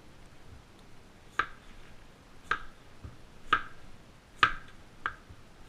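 Kitchen knife slicing through a melon, the blade knocking down onto the cutting board about once a second in short sharp knocks.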